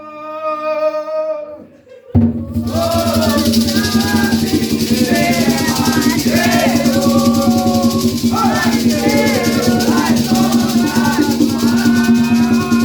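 A held sung note, then about two seconds in an Umbanda ponto starts suddenly: voices singing over a fast shaken maraca rhythm and a steady low tone.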